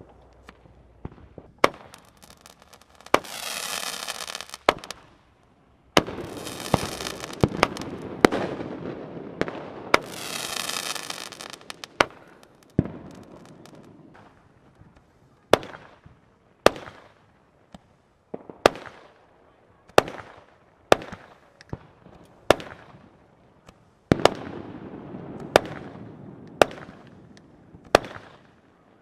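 Aerial fireworks going off: a long run of sharp bangs, coming about once a second in the second half, with stretches of loud hissing between them.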